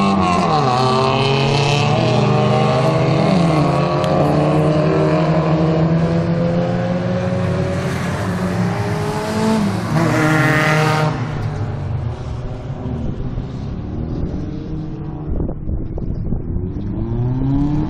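Racing saloon car engines at high revs around a circuit, their notes rising and falling through gear changes. About eight seconds in, one car runs down the wet straight close by, its engine and tyre hiss growing loud, then dropping away sharply at about eleven seconds. After that the engines are fainter, and one note rises again near the end.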